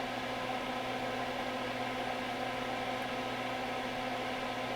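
Steady electrical hum and whir of bench equipment, with several constant tones over an even hiss.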